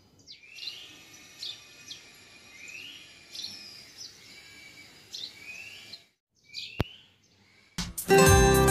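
Small birds chirping with repeated short sliding chirps, which stop about six seconds in. After a brief pause and a single click, acoustic guitar music starts near the end.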